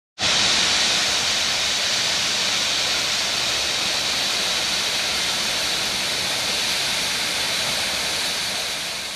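Steam locomotive letting off steam: a loud, steady hiss that fades out near the end.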